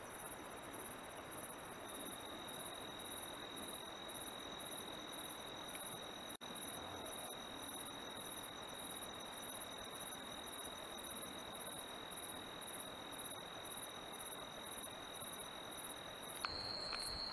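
Night insects, crickets, chirping: a high pulsing chirp about twice a second over a steady high trill.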